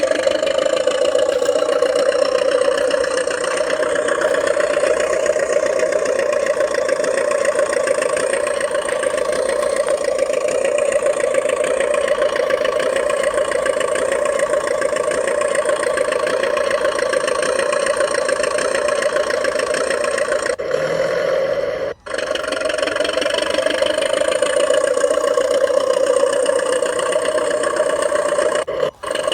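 Hand-built RC model DT-54 crawler bulldozer running while pushing snow: a steady, unchanging engine-like drone, broken by two brief dropouts about 22 and 29 seconds in.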